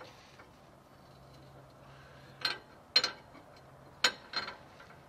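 Long steel threaded rod sliding down a Dana 44 front axle tube, clinking against the metal in about five sharp, ringing taps, the loudest about three and four seconds in.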